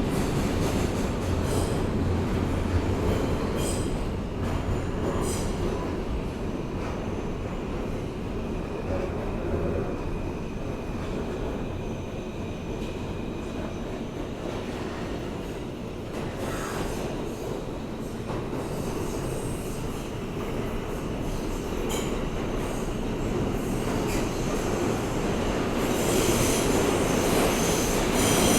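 Inside an R160A-2 subway car running between stations: a steady rumble of the wheels on the rails, with high wheel squeal coming in briefly about four seconds in and more strongly near the end.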